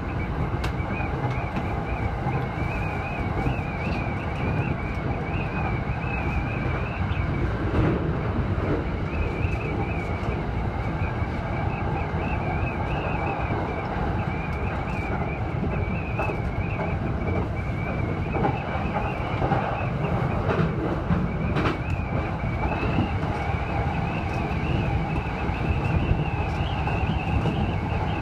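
Running noise of an E231-series electric train from inside the driver's cab: a steady rumble of wheels on rail, with a thin wavering high whine over it and a few sharp clacks.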